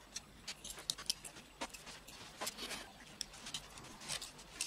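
Plastic Lego bricks clicking and knocking as they are handled and pressed together, in a quick, irregular run of faint clicks.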